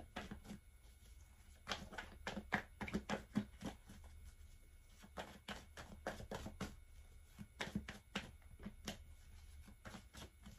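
A deck of tarot cards shuffled overhand from hand to hand: faint, irregular clicks of cards slapping together, in short runs.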